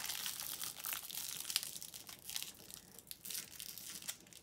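Small plastic wrapper on an L.O.L. Surprise doll crinkling and tearing as it is picked open by hand, busiest in the first couple of seconds and thinning out after.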